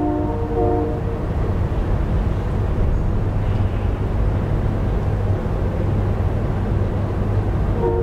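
Synthesized recreation of a distant Leslie S3K three-chime train horn: a chord of several steady tones that ends about a second in. A steady low background rumble and hiss runs on, and the horn chord starts again at the very end.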